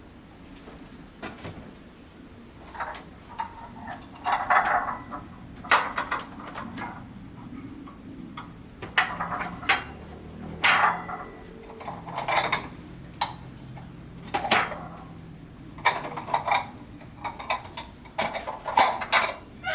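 Irregular knocks and clatters of hard objects, about a dozen sharp strikes, some in quick clusters.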